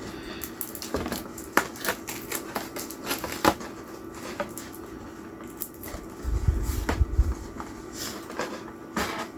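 Irregular small clicks and crackles of hands working at a doll's plastic packaging, pulling off tape and thread. A cluster of low thumps from handling comes about two-thirds of the way through.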